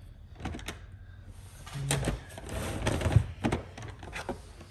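Hard plastic PSA graded-card slabs clacking and sliding against each other as one is set down on a stack and the next is taken off: a few sharp clicks, then a scrape with louder knocks in the middle, then more clicks.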